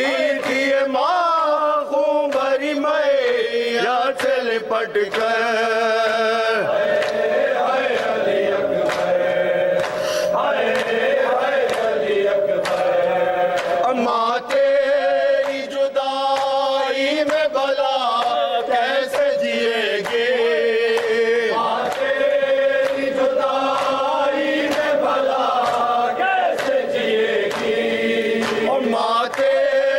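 Several men chanting an Urdu noha, a mourning lament, led by a reciter at a microphone, with scattered slaps of hands beating on chests (matam) over the singing.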